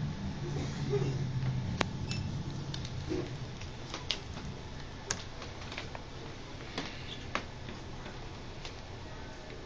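Small laptop parts and screws being handled on a bench: scattered light clicks and taps, about half a dozen sharp ones, with a low hum in the first two seconds.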